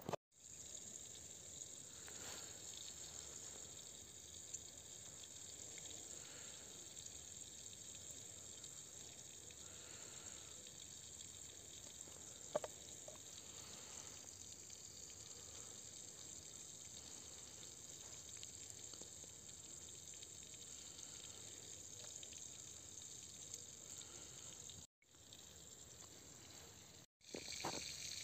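Near silence: a faint steady hiss of background ambience, with one soft click about halfway through and two short dropouts near the end.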